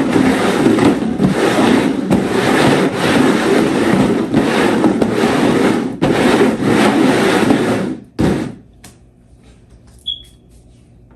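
Loud rhythmic rustling and scraping of food packages being shuffled around, cutting off abruptly about eight seconds in, then a single faint click near the end.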